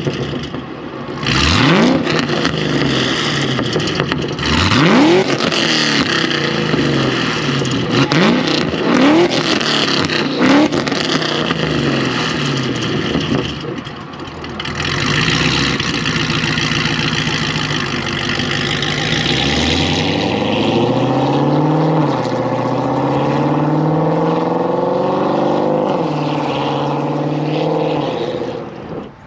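2009 Cadillac CTS-V's supercharged 6.2-litre V8, breathing through longtube headers, a catless X-pipe and Corsa Extreme mufflers, revved in several sharp quick blips with pops and crackles. It then pulls hard through the gears, the pitch climbing and dropping back at each shift, and falls away near the end.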